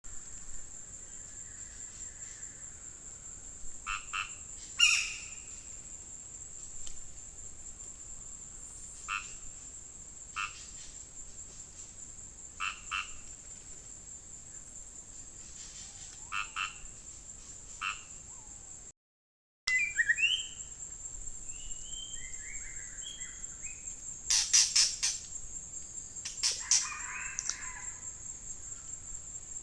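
Frogs calling in short croaks, often in quick groups of two to four, every few seconds over a steady high-pitched insect drone. The sound drops out briefly about two-thirds through, then the drone resumes with more varied, louder chirping calls.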